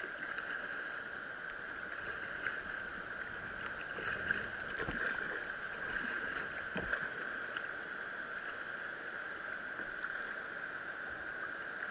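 Moving river water washing around a kayak's hull: a steady rushing hiss with small splashes, and a couple of dull knocks against the boat about five and seven seconds in.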